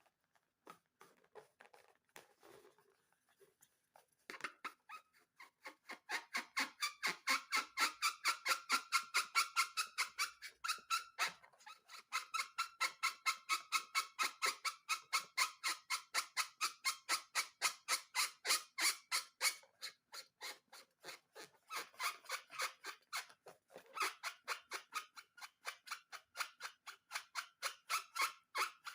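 Slime being worked by hand, giving rapid, even squelching strokes about four a second with a squeaky edge. A few scattered clicks come first, the steady rhythm sets in about four seconds in, and it breaks off briefly a couple of times.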